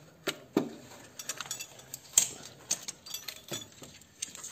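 Irregular metallic clinks and knocks as a Delphi diesel injection pump is worked loose from its mounting and lifted out of the engine bay. The loudest knock comes about two seconds in.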